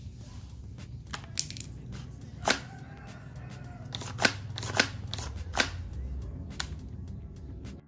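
Sharp clicks and scraping of paper and cardboard parts as a hand works the charging handle of a homemade paper rifle. There are several clicks, and the loudest come in the second half.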